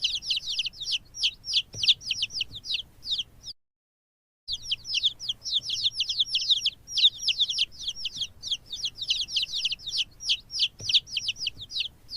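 Chicks peeping: rapid, overlapping, high downward-sliding peeps from many chicks at once. The peeping breaks off for about a second near the four-second mark, then resumes.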